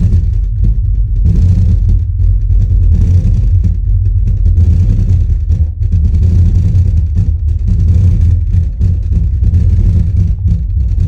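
DIY 18-inch subwoofer in a barrel enclosure playing loud, continuous deep bass, with little above the low end. The enclosure's driver seal still leaks at several spots.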